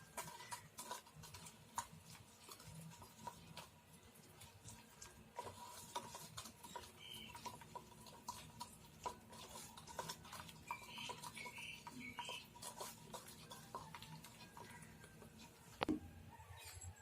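Spoon stirring in a bowl of wet masala marinade, with scattered light clicks of metal against the bowl and a sharper knock near the end. A few faint short chirps come in over it.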